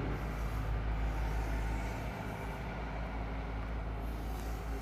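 Steady low background rumble with a faint even hiss.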